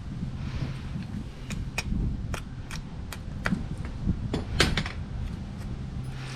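Irregular sharp clicks and knocks from hand work on wooden door trim and its long nails, the loudest about four and a half seconds in with a short ring, over a low steady hum.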